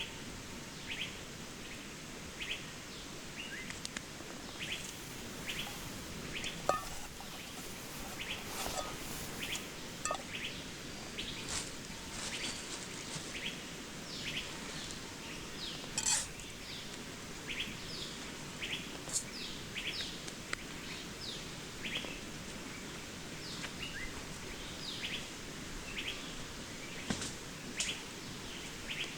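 Small birds chirping, many short quick notes throughout, over the steady rush of a waterfall.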